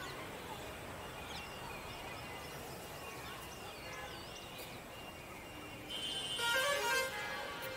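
Steady distant town traffic hum with a few short bird chirps, and a vehicle horn honking for about a second near the end, the loudest sound.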